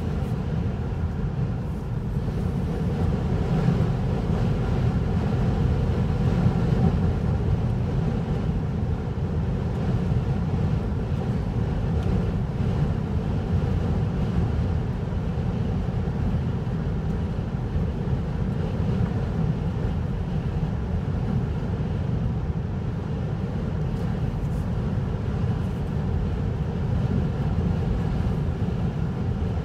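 Steady drone of a vehicle driving on the road, deep tyre and engine rumble with a faint steady hum over it, unchanging throughout.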